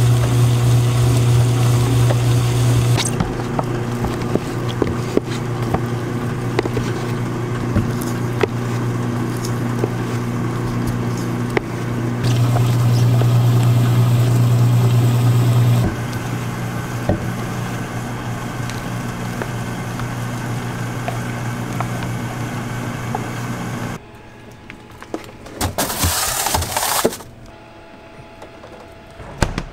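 Gelato batch freezer running with a steady low hum, louder at the start and again about halfway through, while a plastic paddle scrapes and clicks against the steel spout and pan as the gelato is pushed out. Near the end the hum stops and a short burst of hiss follows.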